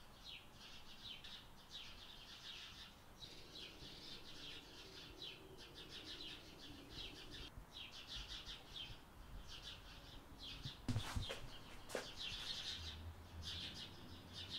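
Faint birdsong: many small birds chirping on and on. Two sharp knocks about a second apart come through near the end, and a low hum starts shortly after.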